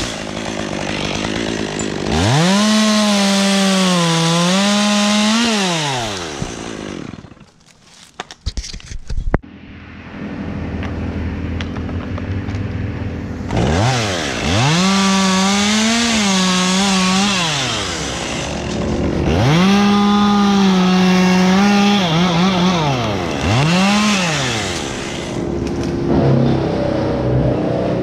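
Two-stroke chainsaw revving up and cutting through ash limbs in bursts of a few seconds, the pitch sagging a little under load, then dropping back to idle between cuts. About a third of the way in, the saw goes briefly quiet with a few sharp clicks, then idles again.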